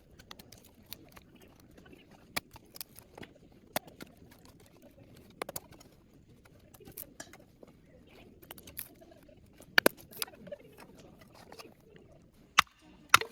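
Wood campfire crackling: scattered, irregular sharp pops and snaps, with two louder cracks near the end.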